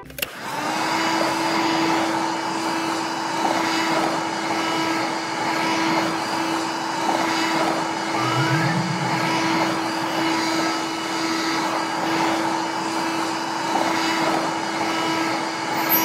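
Toy vacuum cleaner's small battery motor switched on and running with a steady whirr and hum.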